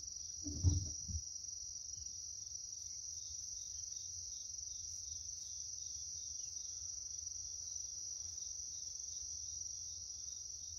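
Steady high-pitched insect chorus, with a faint low hum beneath it and one short, louder low sound about a second in.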